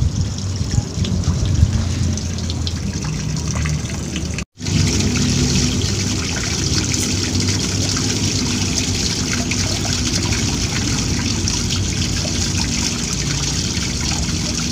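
Stream water running and trickling steadily, with a few small knocks in the first couple of seconds; the sound cuts out for a moment about four and a half seconds in, then the steady water resumes.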